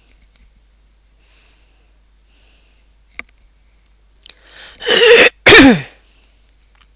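A person sneezing loudly once, about five seconds in: a short intake of breath, then two sharp bursts with falling pitch. A single faint click comes about three seconds in.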